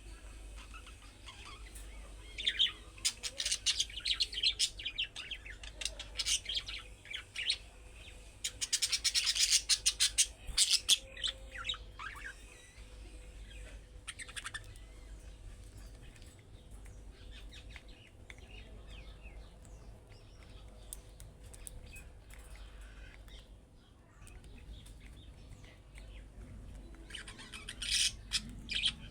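Budgerigars chattering and chirping in rapid bursts of high, scratchy warbling and squawks, loudest in two spells in the first half and again near the end, with quieter calls between.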